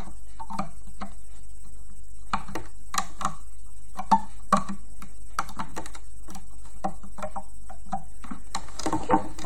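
Irregular light clicks and taps of a loom hook working rubber bands over the plastic pegs of a loom.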